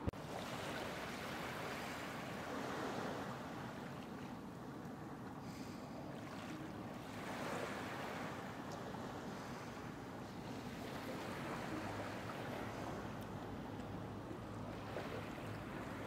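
Small waves lapping and washing onto a sandy shore, swelling and easing every few seconds. A faint low steady hum joins about two-thirds of the way through.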